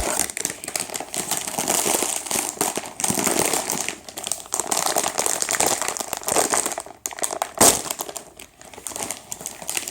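Plastic snack bag of onion-flavoured rings being torn open and crinkled by hand, a dense run of crackling rustles with one sharp louder crack about seven and a half seconds in.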